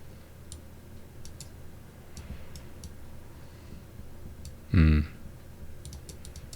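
Scattered, irregular light clicks at a computer, from a mouse or keyboard as moves are made. About five seconds in comes one brief low vocal sound, a short grunt or "hm" that is the loudest thing heard.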